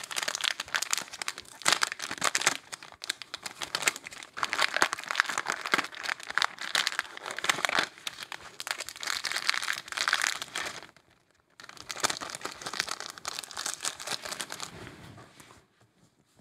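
Clear plastic sticker bag crinkling and crackling as it is opened and handled and a pack of paper flake stickers is pulled out and spread on the table, with a brief pause about eleven seconds in.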